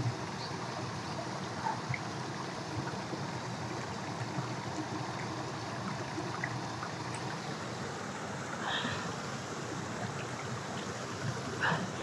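Mountain stream running over rocks, a steady even rush of water.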